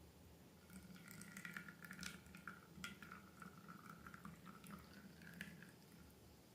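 Faint wet clicks and crackles of slime being squished and worked by hand, with a thin squeak running through most of it.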